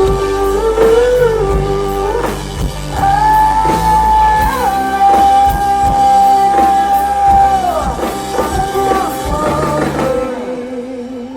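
Live country-rock band playing the closing bars of a song, drums and bass under a long held sung note. The drums and bass stop about ten seconds in, leaving a held note ringing on.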